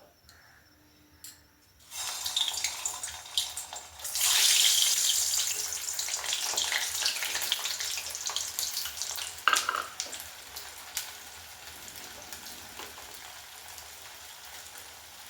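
Semolina dumplings frying in a kadai of lightly heated oil: a sizzle starts about two seconds in, grows loud about four seconds in, then slowly dies down.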